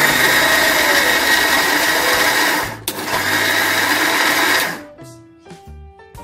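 Electric mixer-grinder with a steel jar running, grinding wet rice-and-urad-dal idli batter with coriander, green chilli, garlic and ginger. It runs for almost three seconds, stops for an instant, runs again for about two seconds and cuts off.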